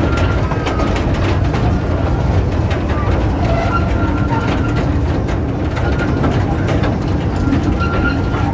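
Steady low rumble of an open-sided passenger ride vehicle moving along, heard from on board, with frequent rattling of its frame and faint children's voices.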